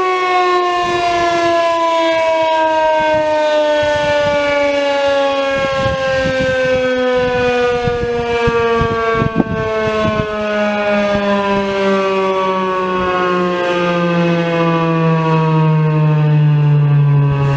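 Federal Signal 2001-SRN rotating outdoor warning siren winding down after its short alert, one loud tone with its overtones sliding slowly and steadily lower in pitch. Some low rumbling noise comes through about halfway.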